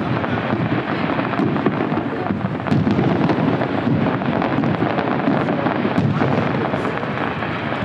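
Fireworks going off in rapid succession, their booms running together into a continuous rumble with many sharp cracks through it, growing louder a little under three seconds in.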